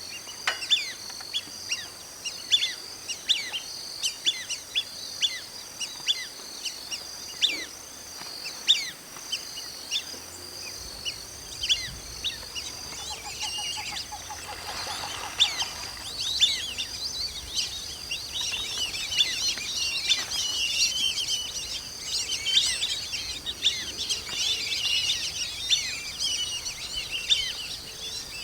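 A flock of black-bellied whistling ducks calling, with many short, quick whistles repeating one after another. The calls grow denser and louder about halfway through.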